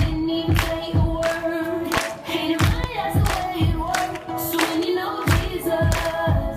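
A group singing a song together over music, with a steady beat about every two-thirds of a second.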